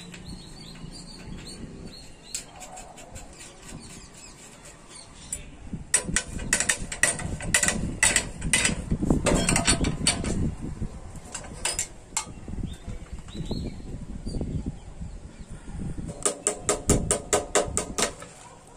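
Metal clinks and clicks of a spanner working on nuts and bolts of a moped's handlebar fittings, irregular through the middle, with a quick even run of clicks near the end.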